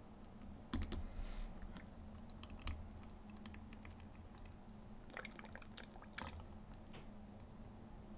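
Faint handling sounds of small plastic bottles and a tiny plastic funnel in nitrile-gloved hands: scattered soft clicks and squishes, a few louder ones about a second in, near the middle and about six seconds in, over a faint steady low hum.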